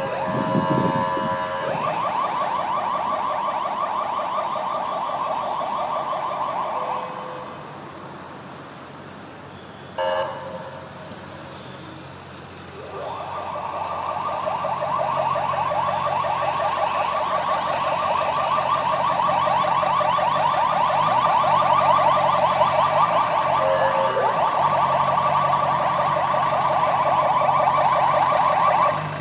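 A car alarm going off. It opens with a brief steady multi-tone pattern, then warbles fast for about five seconds, falls quiet for several seconds apart from one short blip, then warbles again for the rest of the time.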